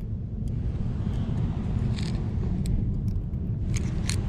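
Steady low outdoor rumble with a few short sharp clicks and rustles, the last and loudest near the end, as a freshly caught fish is handled right against the camera.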